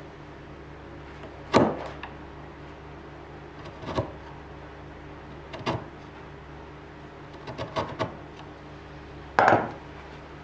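Hand-pushed chisel paring the walls of a small socket in oak, a short scraping cut every second or two, about six in all, the loudest about 1.5 s in and near the end.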